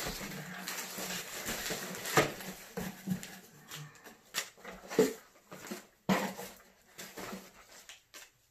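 Packaging rustling as items are pulled out of a cardboard shipping box, with a few sharp knocks and clicks as things are handled. The rustling is strongest in the first few seconds.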